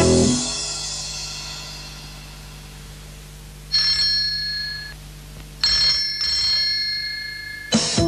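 A loud closing chord of music dies away, then a telephone bell rings: one ring of about a second near the middle, then after a short gap a longer ring with a brief break in it. Music starts again near the end.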